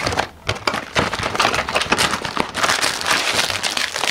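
Cardboard cookie box being opened, then a plastic cookie tray in a clear plastic wrapper crinkling and crackling as it is pulled out and handled.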